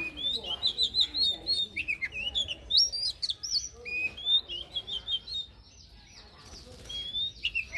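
Oriental magpie-robin singing a fast, varied run of whistled notes and slurs, pausing briefly about six seconds in and starting again near the end.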